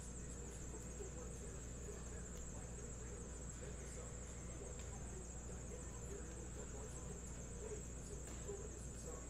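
Quiet room tone: a steady high-pitched electronic whine over a low hum, with faint rustling of trading cards being flipped through by hand.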